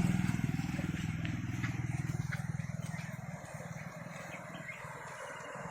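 A motor vehicle engine running, loudest at the start and fading away over the first three or four seconds as it moves off, leaving a quieter outdoor background.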